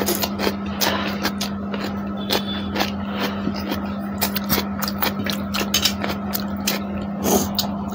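Close-miked eating sounds: fingers mixing rice and scraping on steel plates, plus chewing. A quick run of small clicks and smacks, with a louder cluster about seven seconds in, over a steady low hum.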